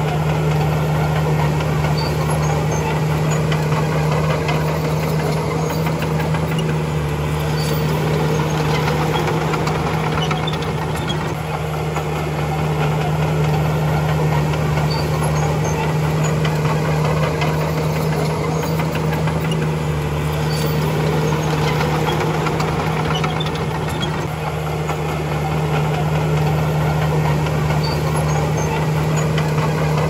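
Heavy diesel engine of earthmoving machinery running steadily with a deep, even hum that eases slightly twice.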